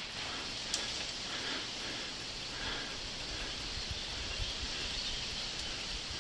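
Steady outdoor field ambience, an even hiss with light rustling and soft low thumps of movement, with one faint sharp click about a second in.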